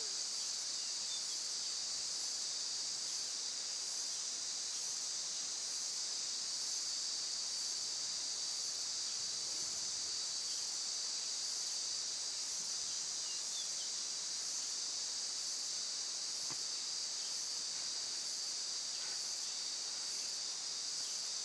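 Forest insects droning: a steady high-pitched buzz, with a second, higher insect call pulsing about once a second.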